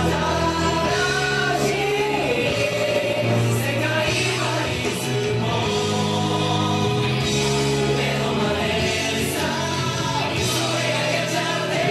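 Pop song sung by a group of male voices together over instrumental backing with a steady beat.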